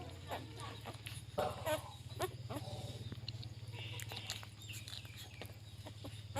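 Chickens clucking, with a few high chirps near the end, over a steady low hum.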